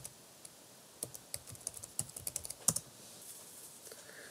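Typing on a computer keyboard: a quick run of key clicks from about a second in until nearly three seconds in.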